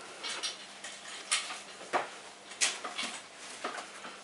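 Irregular light clicks and clinks of objects being handled and moved about, about five or six sharp knocks spread over a few seconds.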